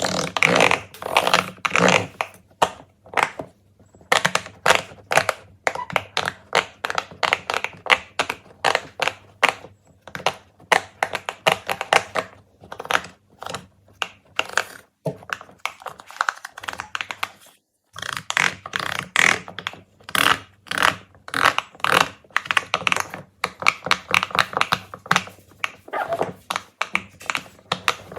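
Fidget toys being handled, tapped and set down: a rapid run of small clicks and taps, broken by short pauses about four seconds in and again around the middle.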